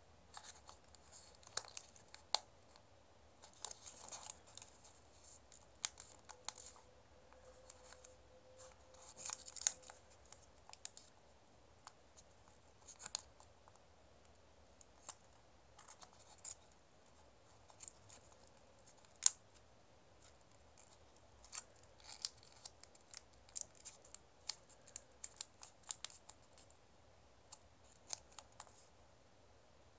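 Sheet of origami paper being folded and pinched into creases by hand: irregular soft crinkles and small crisp clicks, with one sharper snap about two-thirds of the way through.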